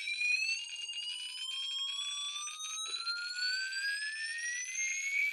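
Piezo buzzer driven by an Arduino's square-wave tone, one continuous beep sliding steadily upward in pitch as the knob raises the frequency from about 700 hertz past 1,600 hertz; it is being swept to find its resonant frequency. It grows louder near the end as the pitch nears the piezo's resonance around 2.5 kilohertz.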